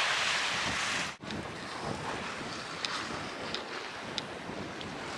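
Sea waves washing onto the shore with wind buffeting the microphone. The sound drops out briefly about a second in.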